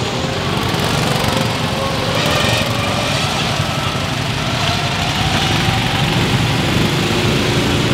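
Small gasoline go-kart engines running, with one engine's pitch slowly rising as a kart speeds up partway through.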